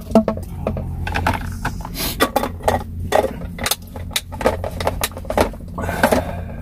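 Dishes, food containers and utensils being handled during a meal: an irregular run of light clicks and knocks, over a steady low hum.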